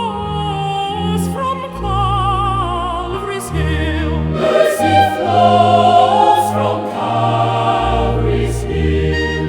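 A choir singing a slow hymn with wavering vibrato, over held low accompaniment chords that change about once a second.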